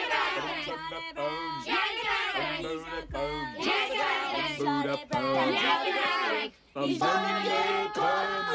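A group of men's and boys' voices singing a doo-wop song together a cappella, with a low bass voice repeating a short figure underneath; the singing breaks off briefly about two-thirds of the way through.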